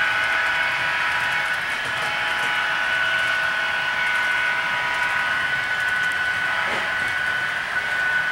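HO scale model double-stack container train running along the track: a steady whine from the train's motors and wheels on the rails.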